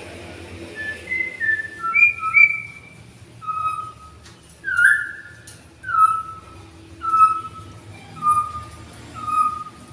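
A songbird whistling clear, pure notes: a few varied notes first, then a steady run of slightly falling whistles about once a second.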